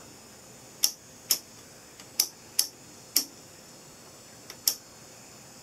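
Sharp clicks from the front-panel controls of a Telequipment D1011 oscilloscope being worked by hand: six separate clicks at uneven intervals, over a faint steady high whine.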